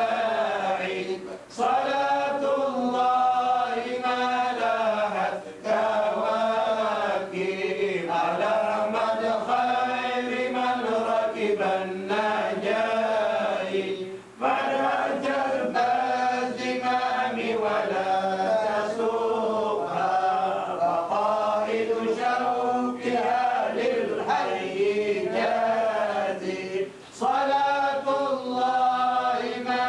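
Solo voice chanting in long, drawn-out melodic phrases, with short pauses for breath between them.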